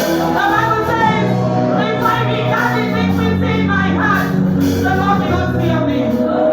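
Gospel worship music: voices singing a melody over held low accompanying notes.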